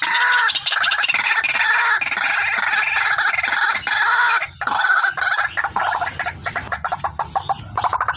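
Recorded lure call of a female white-breasted waterhen (ruak-ruak): a rapid run of repeated notes, breaking off briefly about four and a half seconds in.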